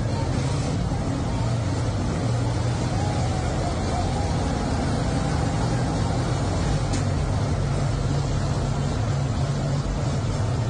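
A motor vehicle's engine running steadily, a constant low rumble, with faint voices underneath.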